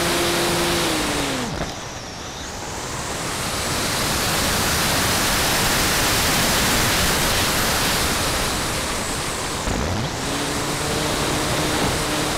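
Model airplane's propeller motor heard from onboard: it runs with a steady tone, then is throttled back about a second in and its pitch sinks away. Rushing airflow fills the glide, swelling and easing, until the motor spools up again toward the end and holds a steady, slightly lower tone.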